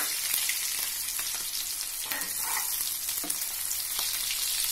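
Potato chunks sizzling steadily as they fry in hot mustard oil and ghee with whole spices in a non-stick kadai. A few times a spatula scrapes and stirs them against the pan.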